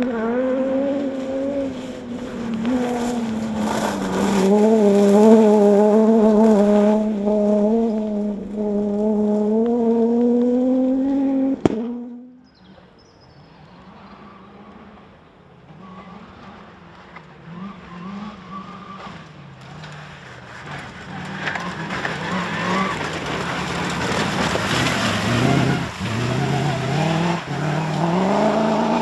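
4x4 off-road rally car engines running hard. For about twelve seconds one engine holds a steady high note, then the sound cuts off suddenly. A quieter car follows, its revs rising and falling over tyre and gravel noise.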